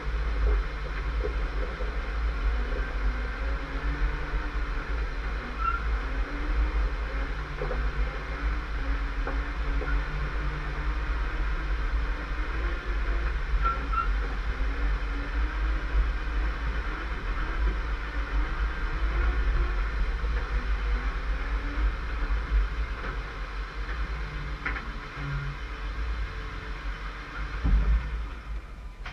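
Off-road vehicle engine running steadily at low revs under load while dragging a disabled Jeep along a dirt track on a tow strap, over a heavy low rumble.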